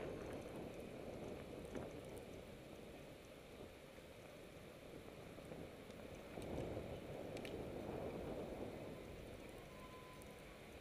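Wind rushing over the microphone and tyre rumble of a bicycle riding on an asphalt street: a steady low noise that swells about six seconds in, with a few faint ticks.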